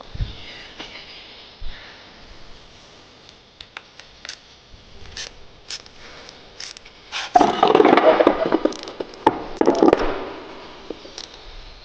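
Tools and bicycle parts being handled during a brake adjustment. Scattered light clicks and taps, then about three seconds of loud scraping and rubbing starting some seven seconds in.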